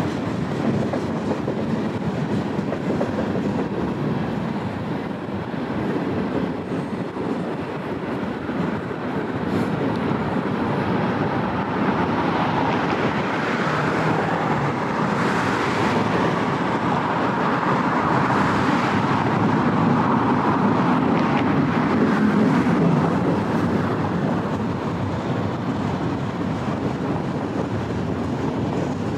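Union Pacific freight train's cars (tank cars, empty bulkhead flatcars and autoracks) rolling past, steel wheels running on the rails in a steady rumble. It grows louder about halfway through and eases off again near the end.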